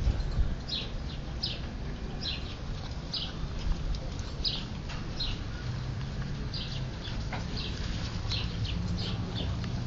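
A bird chirping over and over, short high-pitched chirps about one or two a second, with low rumbling handling noise underneath.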